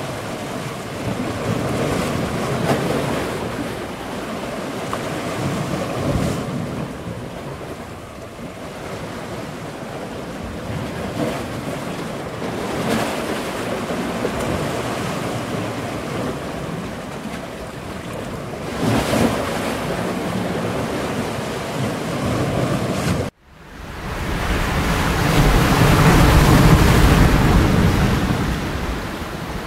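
Ocean waves washing in a steady rushing noise that swells and ebbs every few seconds. It cuts out abruptly about 23 seconds in and comes back as a louder, deeper rush.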